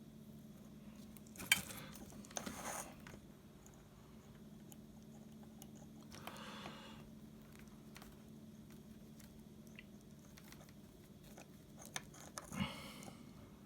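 Soft clicks and taps of wires and a soldering iron being handled while the speaker wire ends are tinned, with a few short hisses (a couple of seconds in, around six seconds and near the end) over a faint steady hum.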